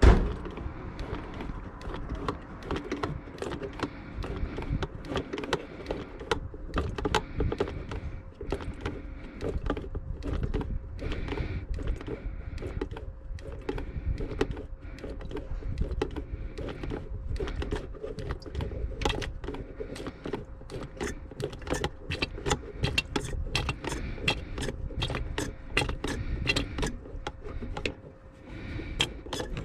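Metal hand tools clicking and clanking against the engine bay, with irregular sharp clicks that come faster and in quick runs in the second half. This is work on removing a power steering pump.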